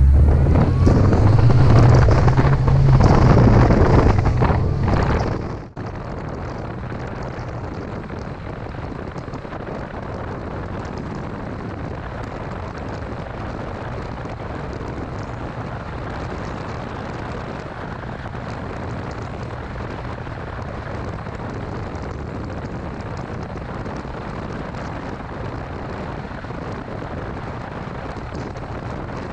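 2006 Mini Cooper S's 1.6-litre four-cylinder engine running loud with its pitch shifting up and down as the revs change, cut off abruptly about six seconds in. The rest is a steady, quieter low drone with rushing wind and road noise.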